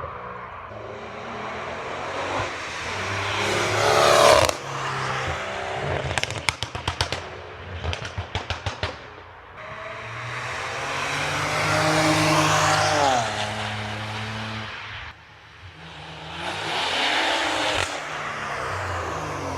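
BMW turbocharged straight-six cars making fast flybys: the exhaust rises to a loud pass and fades several times, with the pitch dropping as a car goes by. About six seconds in comes a quick run of exhaust pops and crackles on the overrun, the burbles of the tuned exhaust.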